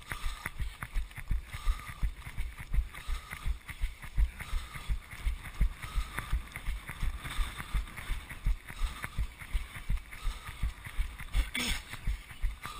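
Running footsteps on a wet paved path, picked up by an action camera worn by a runner: a steady thudding about three times a second as each stride jolts the camera. A brief louder sound comes near the end.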